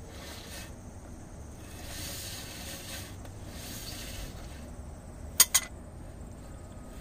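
Airstream trailer brake drum being turned by hand on its freshly repacked wheel bearings while the spindle nut is snugged with a wrench, to seat the bearings before the nut is backed off: rasping, rubbing sounds, then two sharp metallic clinks about five and a half seconds in.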